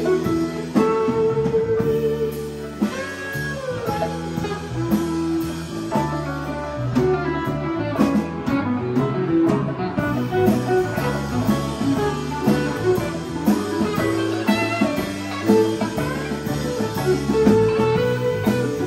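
Live band playing an instrumental passage, with electric guitar, electric bass, keyboard and drums.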